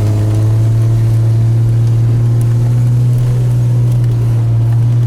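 2002 Chevrolet Trailblazer engine held at raised revs under load: a loud, steady drone that rises just before and holds even throughout. The engine now runs clean after its cylinder-3 misfire was fixed.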